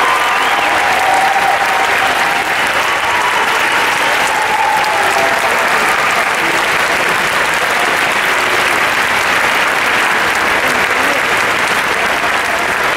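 A large theatre audience applauding steadily.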